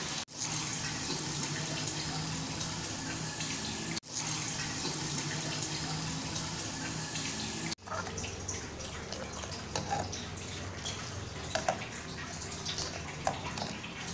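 Milk tea boiling in a metal saucepan on a gas stove: a steady bubbling hiss that briefly cuts out three times. In the second half a spoon stirs the pan, with a few light knocks against the metal.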